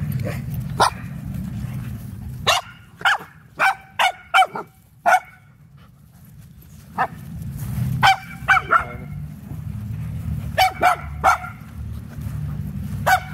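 A dog barking in short, high-pitched barks, some single and some in quick runs of three to six.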